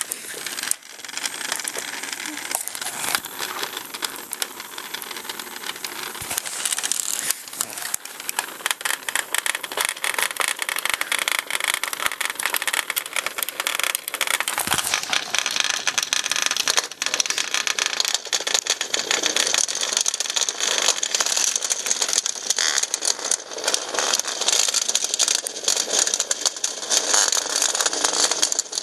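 A swarm of Hexbug Nano vibrating toy bugs buzzing and rattling as they skitter over the plastic floors, walls and tubes of their habitat: a dense, continuous clatter of tiny clicks that grows louder about halfway through.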